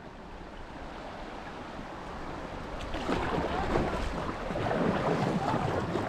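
Shallow river water rippling and gurgling over rocks and lapping against a kayak's hull. It gets louder from about halfway through.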